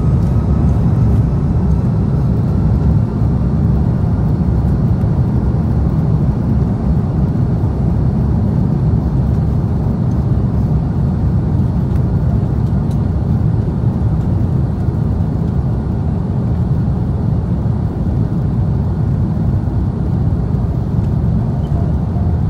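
Airliner's jet engines at takeoff thrust with the wheels rumbling along the runway during the takeoff roll, heard inside the cabin: a loud, steady deep rumble. A faint rising whine fades out about two seconds in.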